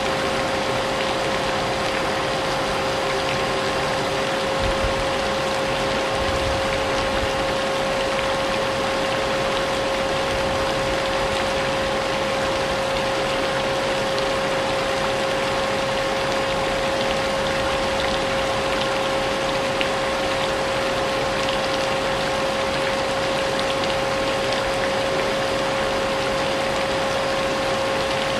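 Vacuum cleaner running steadily with a constant motor whine, layered over a steady hiss of rain.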